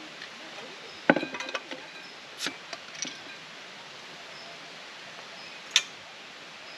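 Clinks and knocks of hard objects being handled: a quick cluster about a second in, a few more around the middle, and one sharp click near the end, over a steady background hiss.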